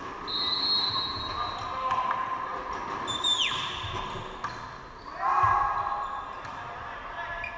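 Volleyball match in a large, echoing sports hall: a referee's whistle is blown once for about a second, then come shoe squeaks on the court floor, a sharp ball strike as the serve is hit, and a shout from the players.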